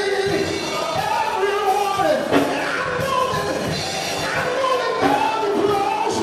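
A man singing a gospel song into a microphone with musical accompaniment, his voice sliding up and down through long held notes.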